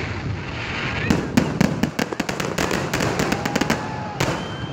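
Fireworks display: aerial shells bursting, with a quick run of sharp pops and crackles from about one to two and a half seconds in and a single loud bang near the end, over a low rumble.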